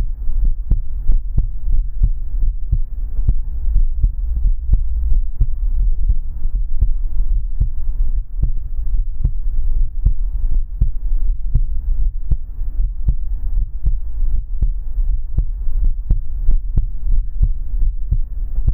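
Human heartbeat: deep, steady, evenly repeating thumps over a continuous low hum.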